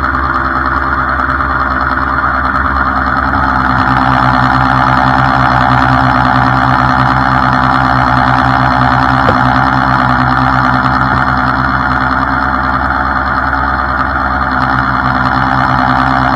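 Rollback tow truck's engine running steadily while it drives the winch pulling an overturned pickup over onto its side, with one brief click about halfway through.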